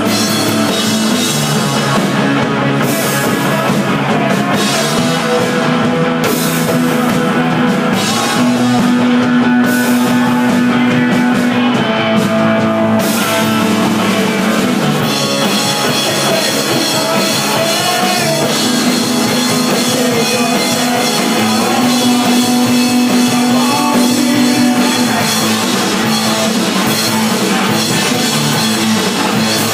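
A live rock band of two electric guitars, bass guitar and drum kit playing loudly, the sound growing brighter and fuller about halfway through.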